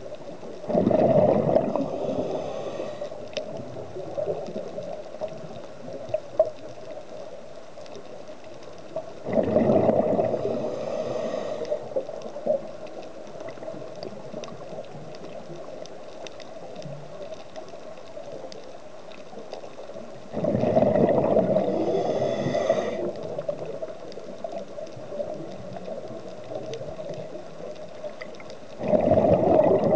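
A scuba diver's regulator exhaling: a rush of bubbles two to three seconds long, heard four times about every ten seconds. Between the exhalations there is a quieter steady hiss with scattered faint clicks.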